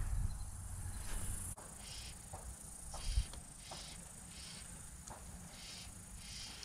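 Low water and handling noise for about the first second and a half, which stops abruptly; then insects chirping in a steady rhythm from riverside vegetation, a short high chirp about every two-thirds of a second, with a few faint light knocks.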